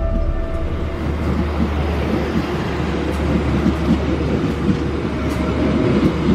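Diesel locomotive engine running with a steady low drone as trains roll slowly past, with a rumble of wheels on the rails and faint light ticks.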